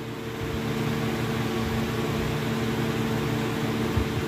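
A machine humming steadily: a low drone with an even hiss over it, with no change in pace.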